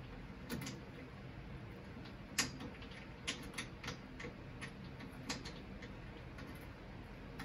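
Four-flute end mill turned by hand in a bolt hole, its cutting edges clicking and scraping on the steel floor pan as they cut a shiny circular mark. Faint, irregular ticks.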